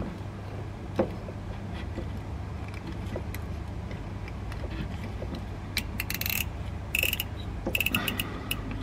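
Light metallic clicks and rattles of a hand tool and wiring being worked against the underside of a van's frame, with a sharp click about a second in and quick clusters of rattling near the end, over a steady low hum.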